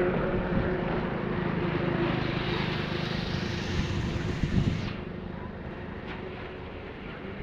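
A motor vehicle passing and moving away, its engine and road noise slowly fading; a hiss in the noise cuts off suddenly about five seconds in.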